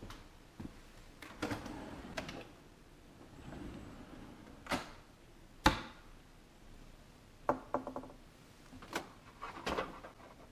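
White painted wooden kitchen cabinet doors being handled: a string of separate knocks and clicks, the sharpest about halfway through, as a corner base-cabinet door is pulled open.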